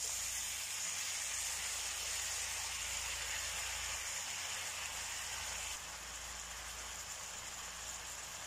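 Steady frying sizzle from a pan of oil with shallots, garlic, shredded chicken and tomato, just after diced potatoes and carrots are tipped in. The sizzle steps down abruptly to a slightly quieter level about six seconds in.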